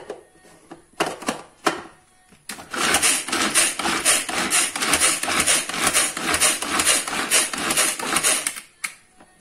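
Manual pull-cord onion chopper: a few clicks as the lid is pressed on, then about six seconds of repeated cord pulls, each spinning the blades through the onion with a clattering whir, about two pulls a second, ending with a click.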